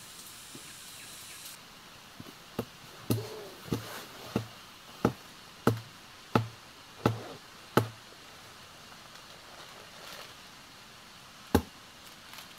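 A run of about nine sharp knocks, roughly one every two-thirds of a second, then a pause and one more knock near the end, like blows of a chopping tool.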